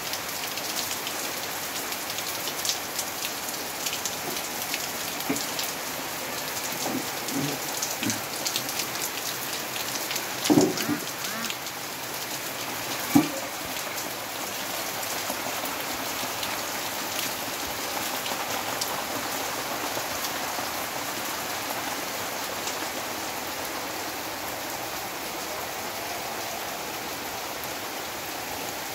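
Heavy rain falling with a steady hiss, individual drops striking close by, most distinctly in the first half. A few brief louder sounds stand out in the first half, the sharpest about thirteen seconds in.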